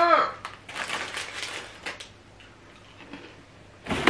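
Crinkly plastic packaging being grabbed and handled, rustling in irregular bursts, with a sharper crackle near the end.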